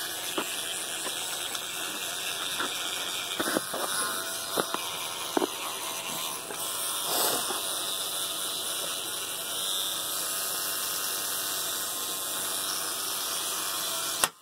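Electric toothbrush running in a capuchin monkey's mouth, a steady buzz with a few short knocks. The buzz cuts off suddenly near the end.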